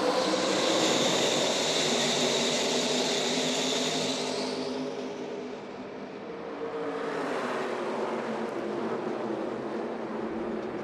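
A pack of NASCAR Craftsman Truck Series V8 race trucks running at full speed past the trackside microphones. The sound eases off about six seconds in, then builds again as more trucks come by.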